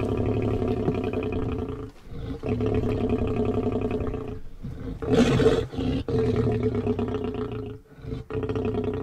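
Lion calling at close range: a run of long, deep, rumbling calls of about two seconds each, separated by short gaps, the one about five seconds in the loudest.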